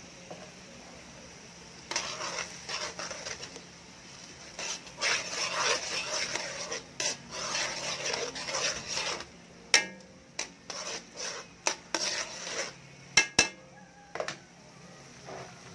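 A kitchen utensil stirring and scraping a thick sauce in a metal cooking pan, then a run of sharp clinks as it knocks against the pan in the second half.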